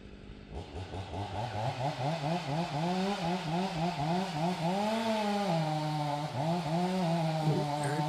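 Chainsaw felling a dead tree, throttled up about half a second in and then running in quick rising-and-falling surges of pitch as it cuts.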